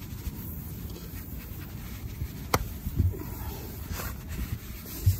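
Spiral rasp tool from a tyre plug repair kit being forced by hand into a nail hole in a car tyre to ream it out, rubbing and scraping against the rubber, with a sharp click about halfway through and a few dull thumps.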